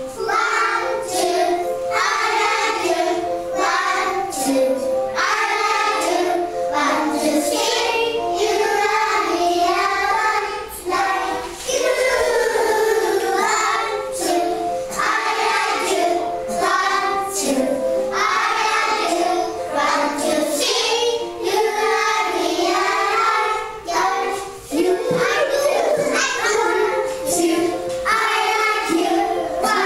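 A group of young children singing a song together, set to music with some held notes running under the voices.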